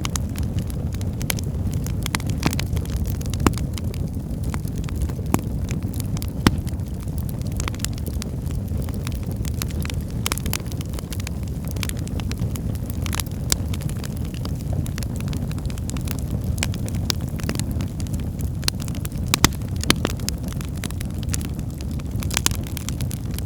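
Wood fire burning in a fireplace: a steady low rumble of flames with frequent irregular crackles and pops of the burning logs, a few of them louder.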